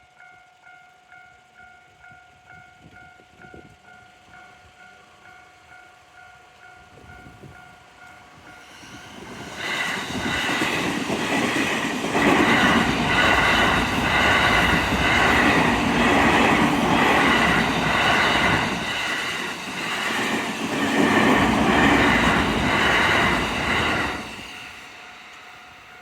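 Japanese level crossing warning bell ringing in a high-pitched, rapidly repeating electronic tone. About ten seconds in, a train passes over the crossing, loud for some fourteen seconds and drowning out the bell, which is heard again as the train fades near the end.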